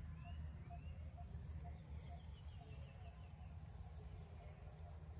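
Outdoor field ambience. Insects buzz steadily at a high pitch, birds give short chirps, and a soft pip repeats about twice a second, all over a steady low rumble.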